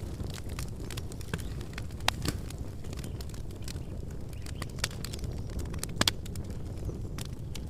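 Campfire crackling: a steady low rush of burning wood with scattered sharp pops and snaps, the loudest about two seconds in and again around six seconds.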